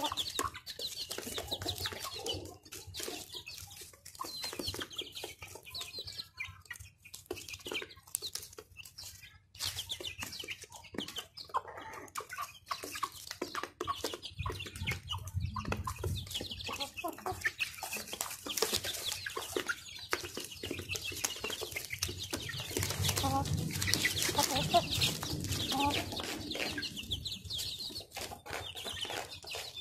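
Chickens and half-grown chicks feeding off flattened cardboard: many quick pecking taps, with peeping and soft clucking throughout. The clucking grows louder a little past the three-quarter mark.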